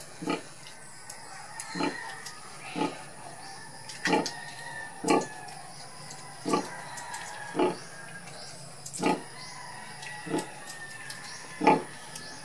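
Sow grunting rhythmically while her piglets suckle: short, low grunts repeated about once every second or so, the steady nursing grunt a sow gives during milk let-down.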